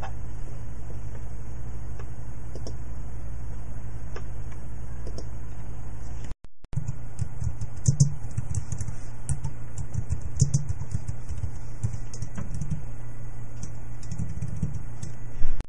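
Irregular clicks of computer keyboard keys being typed, over a steady low hum; the sound breaks off for a moment about six seconds in.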